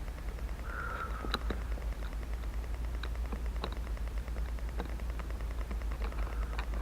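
Faint scattered clicks and taps of a Phillips screwdriver working at a small screw in a car's shifter assembly, over a steady low hum, with one short high squeak about a second in.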